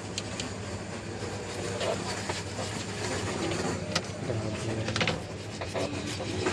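Steady electrical hum under a haze of background noise, with a few sharp clicks about four and five seconds in.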